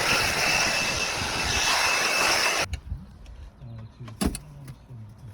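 Handheld blower blowing dust and debris off freshly relaid roof tiles: a steady rushing blast with a faint whine in it, which cuts off abruptly about two and a half seconds in. After that comes a quieter stretch with a single knock.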